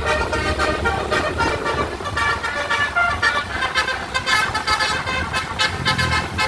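Bus 'telolet' horn, a set of tuned air horns, playing a quick run of changing multi-tone notes over a steady low rumble.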